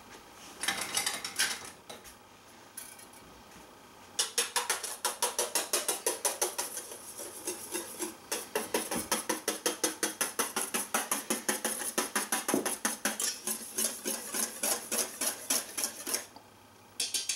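Wire whisk beating rapidly against a stainless steel mixing bowl, about four or five strokes a second, stirring Wondra flour into beer to make a thickener; it starts about four seconds in and stops sharply near the end. A short clatter of metal about a second in.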